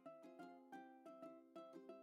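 Faint background music: a light melody of short plucked notes, several a second.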